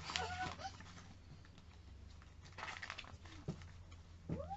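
A short high call right at the start, a brief rustle about two and a half seconds in, and near the end a house cat meowing: one long call that rises and then falls in pitch.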